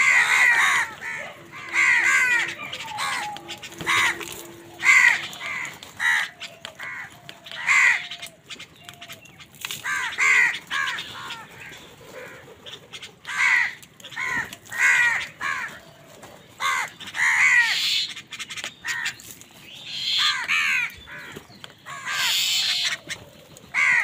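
A flock of house crows cawing: harsh calls from many birds, repeating every second or two and often overlapping, with a short lull near the middle.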